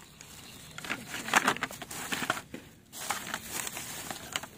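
Plastic rubbish bags crinkling and rustling as a hand rummages through them, in irregular bursts, loudest between about one and two seconds in, with a short lull before it picks up again.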